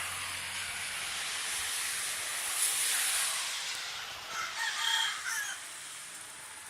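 A rooster crows once, a single call about a second long, a little past the middle, over a steady rushing noise.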